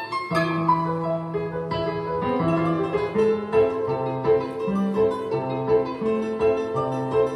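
Solo plucked string instrument, a Russian folk instrument of the domra or balalaika kind, playing a continuous melody of quick notes over held lower notes.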